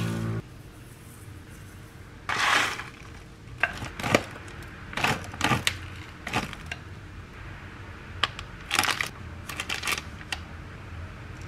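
Dry toppings and frozen blueberries dropped into a wooden bowl. A short rattling pour comes about two seconds in, then scattered small clicks and taps as the hard frozen berries land.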